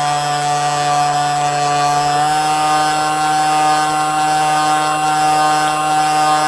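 Water-cooled HK 2842 brushless electric motor of a radio-controlled model boat running under steady throttle, heard from on board as a loud, steady whine that steps up slightly in pitch about two seconds in.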